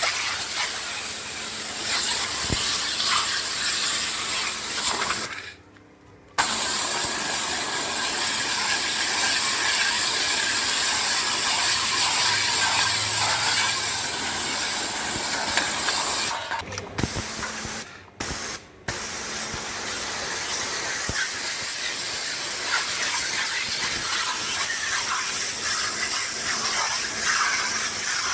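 High-pressure wet sand-blasting jet from a pressure washer, a steady loud hiss of water and abrasive blasting paint off metal plate. The spray cuts out for about a second some five seconds in and stops briefly several times around two-thirds through as the gun trigger is released and squeezed again.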